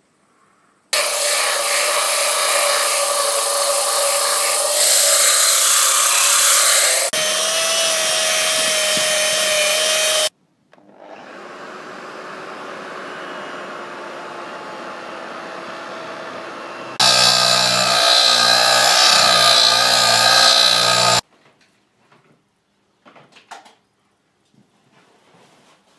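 A high-speed rotary tool grinding and polishing inside a Sea-Doo exhaust manifold port to smooth the factory casting seams, its motor running with a steady whine. It runs loud for about nine seconds, then quieter for several seconds while a felt polishing bob works the port, then loud again for about four seconds before stopping.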